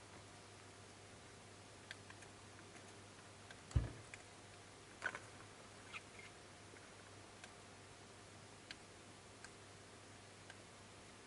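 Brongersma's toads feeding on waxworms from a ceramic dish: faint scattered clicks and taps, with one louder thump about four seconds in, over a low steady hum.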